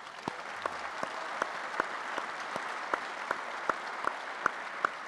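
A banquet-hall audience applauding. Over the steady clapping of the crowd, one set of hand claps stands out sharply at just under three a second.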